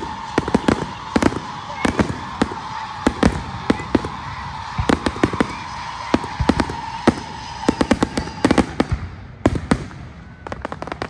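Aerial fireworks bursting: a fast, irregular run of sharp bangs and crackles, several a second. Under them a steady high tone runs and stops about nine seconds in.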